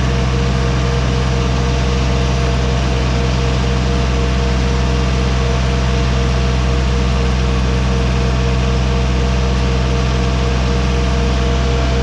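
Compact tractor's engine running at a steady speed as the tractor drives along, heard from the driver's seat.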